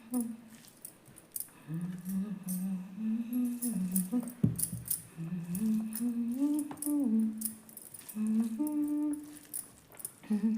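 A voice humming a slow tune in long, gliding held notes, over frequent small clicks, with one thump about four seconds in.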